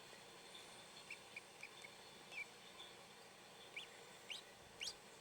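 Newly hatched ducklings peeping: a few faint short peeps at first, then louder, rising peeps coming more often toward the end.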